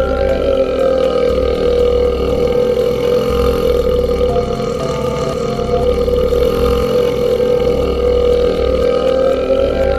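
A man's long burp, unbroken and held at a steady pitch, with no pause for breath. It is a looped recording: the same stretch comes round again about every ten seconds.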